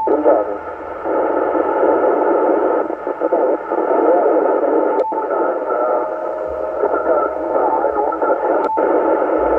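Shortwave receiver audio on the 11-metre CB band: a steady hiss of static held to a narrow voice band, with faint wavering tones in it. There is a sharp click three times, at the start, about five seconds in and near the end, as the receiver is switched between the repeater's input and output frequencies.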